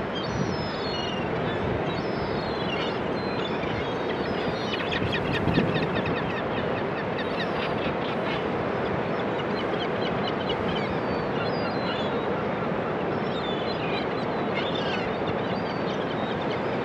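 Steady wash of Pacific surf breaking on the beach, with a flock of birds calling over it in many short, high calls, thickest about five seconds in.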